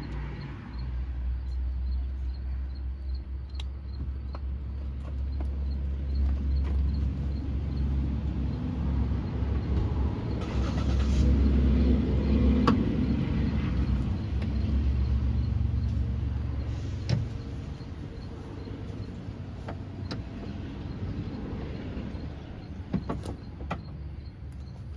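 Low rumble of a motor vehicle running, growing louder to a peak about halfway through and then easing off, with a few scattered clicks.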